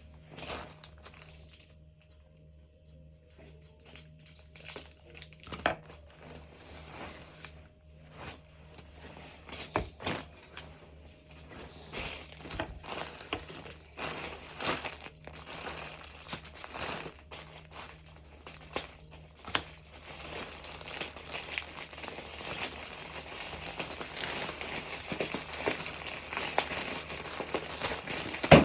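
Plastic packaging crinkling and rustling as clothes are unwrapped and handled, in scattered bursts at first and almost continuous in the second half, with some tearing.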